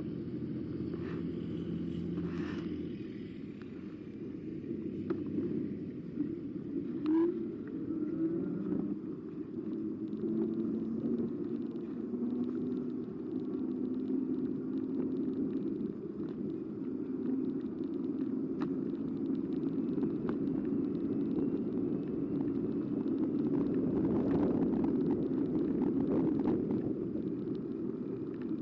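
E-bike riding noise: a steady low rumble from the ride, with a humming tone that rises and falls in pitch and an occasional click.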